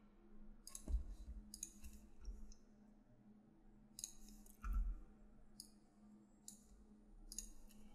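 Faint clicking of a computer keyboard and mouse: short clusters of keystrokes and clicks, a few at a time, spread through the stretch, over a faint steady low hum.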